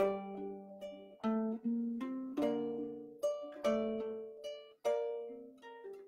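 Instrumental introduction to a slow lullaby on a plucked string instrument: single notes and chords struck one after another, each ringing and fading before the next.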